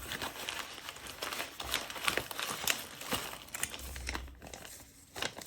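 Packaging crinkling and rustling as it is handled and unwrapped by hand: a run of irregular small crackles that eases off near the end.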